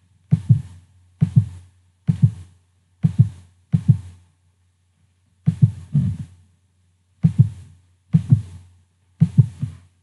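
A series of about ten dull thumps, each with a short hiss, coming roughly once a second but unevenly spaced with a pause near the middle, over a steady low hum.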